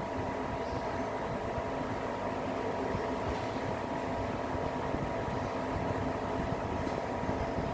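LG S09LS split air conditioner outdoor unit running steadily: the compressor and condenser fan give an even hum with a few held tones over a low rumble.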